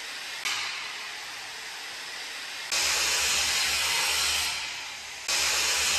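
Steady hissing machinery and air noise in a factory hall, with a low hum, jumping abruptly in level about half a second in, near the middle and near the end.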